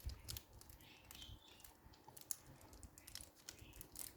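Near silence with a few faint, short clicks and taps scattered through it, like small light objects being handled.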